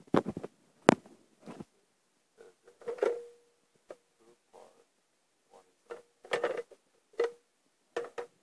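Plastic clicks and knocks as the lid of a George Foreman grill is opened and handled, with one sharp click about a second in and scattered knocks after.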